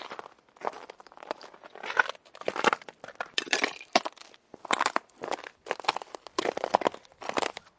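Footsteps crunching over chunks of ice at a steady walking pace, roughly a step every three-quarters of a second. Each step is a sharp crunch with crackling as the ice pieces break and shift underfoot.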